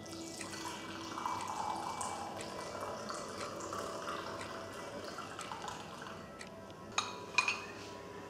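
A hot drink poured from a stainless-steel thermal carafe into a china cup, a steady trickling pour, followed near the end by two sharp clinks.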